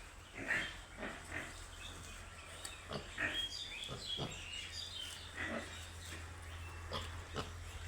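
Piglets grunting and giving short, irregular squeals, with a steady low hum underneath.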